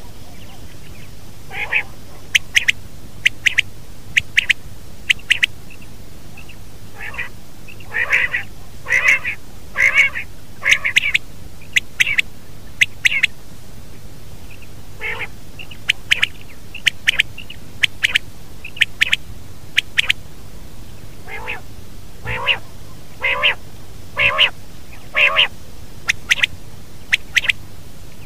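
Common quail calling over and over: short, sharp, high calls come about once a second, with fuller, louder calls bunched in two runs and brief pauses between. A steady low hum runs underneath.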